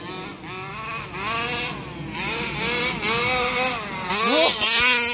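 Rovan Q-Baja RC buggy's 29cc two-stroke petrol engine revving up and down over and over, with a sharp climb in pitch about four seconds in. The new engine is being run in.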